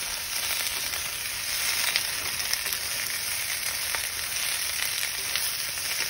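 Onions, red peppers, snow peas and mushrooms sizzling steadily in sesame oil in a nonstick wok as a spatula stirs them, with a few sharp ticks.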